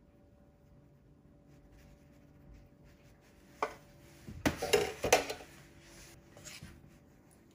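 Kitchen utensils clinking and knocking against dishes: one sharp click about three and a half seconds in, then a short cluster of louder clinks about a second later, with a couple of fainter knocks after.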